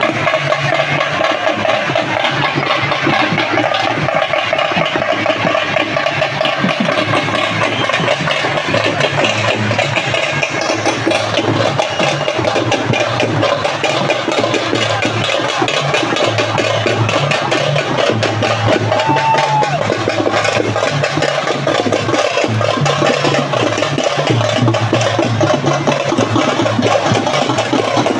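Marching folk drum troupe playing a continuous fast beat on drums slung at the waist, with a vehicle engine running underneath.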